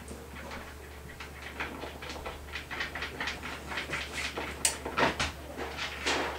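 Irregular crinkling and clicking of newspaper and a plastic tub as a boa constrictor shifts its coils while swallowing a large rabbit, with a few louder knocks in the second half, over a low steady hum.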